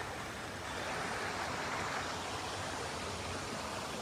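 Steady rush of a creek's flowing water, swelling slightly about a second in.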